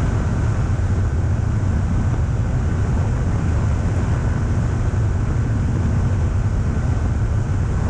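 Steady in-flight noise of a Pipistrel Sinus motorglider, heard from a camera mounted on its wing: wind rushing over the microphone with the engine and propeller running underneath, heaviest in the low bass, plus a faint steady whine.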